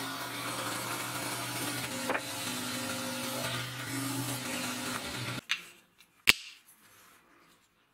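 Belt grinder running steadily while wooden handle scales are pressed against the sanding belt, the belt hissing as it grinds the wood. The sound stops abruptly about five and a half seconds in. Faint handling noise and one sharp click follow.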